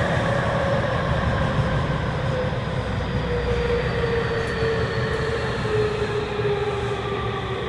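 Tokyu 3000 series subway car heard from inside, running on its original, un-updated VVVF inverter software. The inverter and traction motors give a high-pitched whine that falls steadily in pitch as the train slows, over the rumble of wheels on track.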